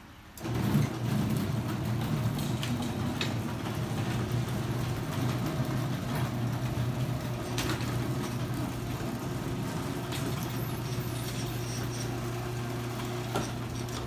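Chain-drive garage door opener motor starting about half a second in and running steadily as it lowers the door, a steady low hum with a few light clicks along the way.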